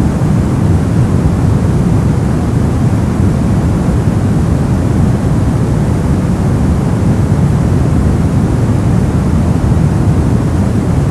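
Steady brown noise: an even, deep rumbling hiss with most of its energy in the bass, unchanging throughout.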